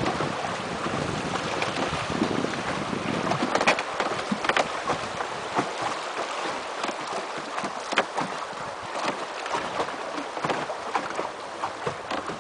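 River water rushing over shallow riffles past a wooden raft, a steady even rush with a few short sharp clicks scattered through it.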